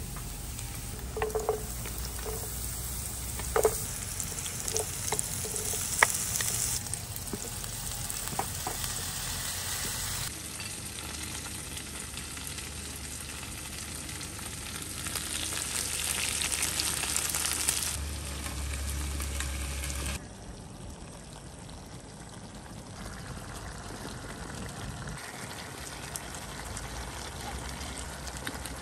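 Food sizzling in a frying pan, with a few short clinks of a utensil against the pan in the first several seconds. The sizzle jumps in level and tone several times.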